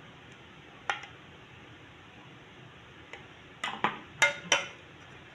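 Metal spoon clinking against the dishes while yogurt is spooned onto chaat: one tap about a second in, then a quick run of clinks near the end, the two sharpest close together.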